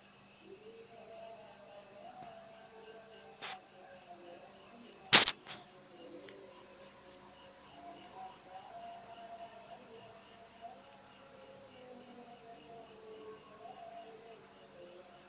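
Night insects, crickets, trilling steadily in several high pitches. A sharp, loud click comes a little after five seconds in, with smaller clicks shortly before and after it.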